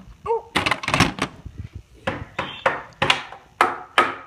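A small hammer knocking against wood: a series of about eight sharp, irregular strikes, some close together.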